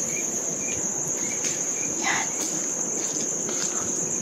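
Night insects, likely crickets, trilling in a steady, high-pitched chorus.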